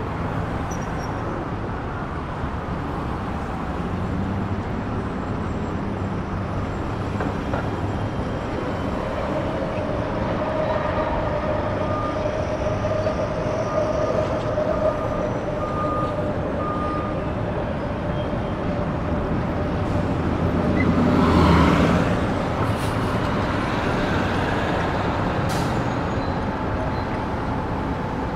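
Steady background noise of a large exhibition hall, with a faint held tone partway through and one brief louder whooshing swell about three-quarters of the way in.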